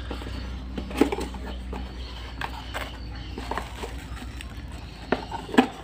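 A small cardboard box being handled and opened by hand: a handful of short scrapes, taps and rustles of the flaps at irregular moments, over a steady low hum.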